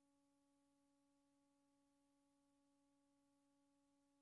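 Near silence, with only a very faint, steady hum under a faint hiss.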